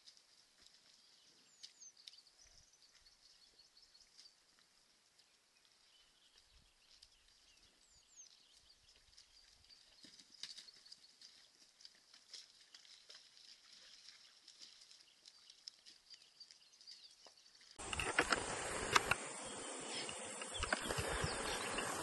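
Quiet outdoor ambience at a waterhole: a faint hiss with a steady high hum, two short high falling chirps and a few faint clicks. About eighteen seconds in it cuts to much louder bush ambience, a steady high insect drone with low rumble on the microphone.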